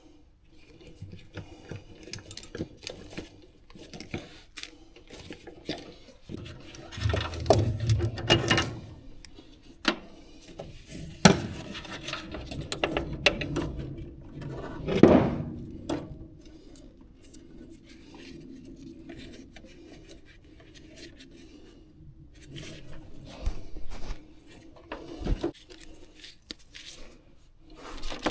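Handling noises: irregular clicks, knocks, scrapes and rubbing, with a faint steady low hum underneath.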